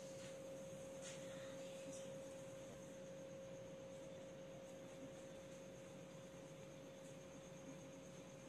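A faint steady hum at one mid pitch, with a fainter high whine above it. A couple of soft ticks come in the first two seconds.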